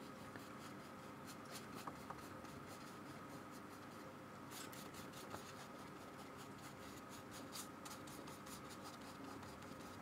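Paintbrush stroking and dabbing paint onto paper: faint, quick, scratchy brush strokes, several a second and irregular, over a faint steady hum.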